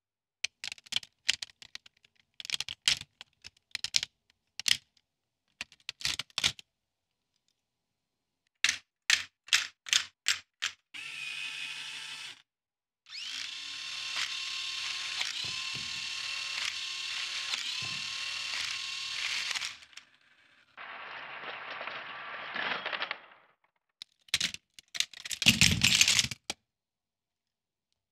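Lego Technic launcher mechanism: a run of sharp plastic clicks and knocks, then an electric motor driving plastic gears with a steady whir, briefly, then for about seven seconds, then for a couple of seconds more. Plastic parts clatter near the end.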